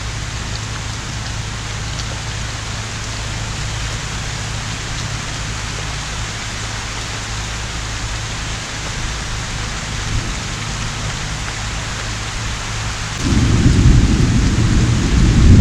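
Steady heavy rain from a hurricane's outer band, then about thirteen seconds in a loud, low thunder rumble breaks in suddenly and keeps rolling.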